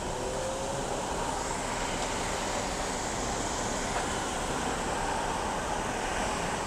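Steady road traffic noise: cars passing on a multi-lane street.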